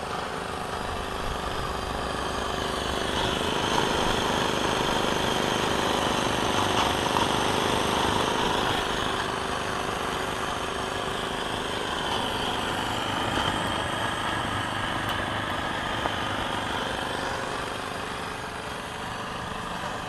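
Small Chinese-made model steam engine running fast on steam from a home-made, kerosene-gel-fired vertical boiler: a steady, rapid mechanical running sound with the hiss of exhaust steam, while its propeller churns the water in a tub.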